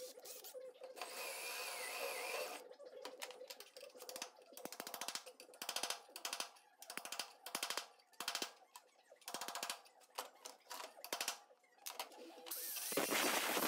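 Hammer blows, about two a second, on steel at a rusted, spot-welded body corner, each strike a short metallic clank. Near the end an angle grinder starts up and runs steadily.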